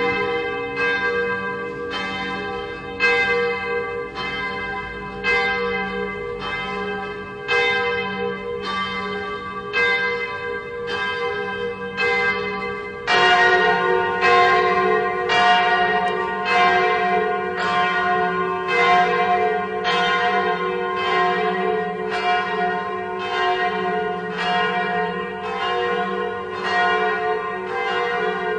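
Swinging church bells pealing: strokes come about once a second, each ringing on into the next. About halfway through, a louder bell joins and the peal becomes fuller.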